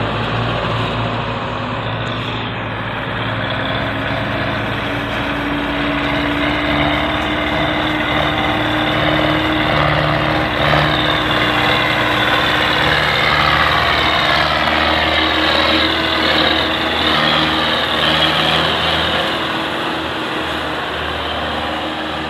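Belarus tractor diesel engines running steadily while hauling sugarcane-laden trolleys. A higher whine wavers up and down for several seconds midway.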